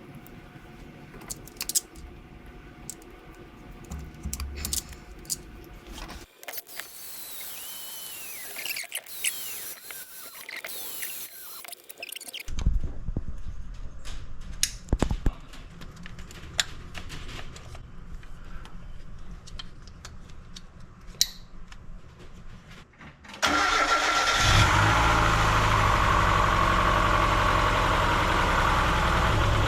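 Scattered clicks and knocks of hand work on the car, then, about 23 seconds in, the 1997 Mazda Miata's four-cylinder engine starts abruptly and runs steadily and loudly. The car still isn't running right even with cleaned injectors and a replaced number-3 injector plug.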